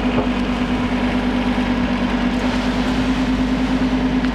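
Compact tractor's engine running steadily, a strong constant hum with an even rumble beneath it.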